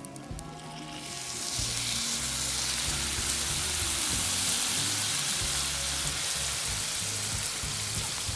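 Food frying in a hot pan: a sizzle that swells up about a second in and then holds steady and loud.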